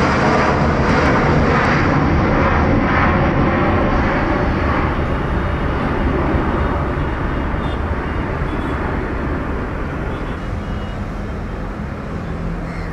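Jet engine noise from a Boeing 787-8 climbing out after takeoff. A steady, loud noise slowly fades and loses its high end as the airliner pulls away.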